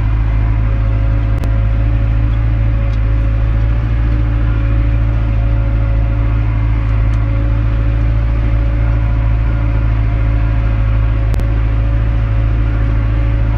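Belarus MTZ-82 tractor's four-cylinder diesel engine running at a steady, constant drone while pulling a plough. Two faint clicks are heard, one about a second in and one near the end.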